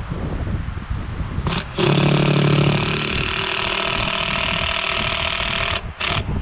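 A power tool's motor runs steadily at one speed for about four seconds, then gives one short burst near the end.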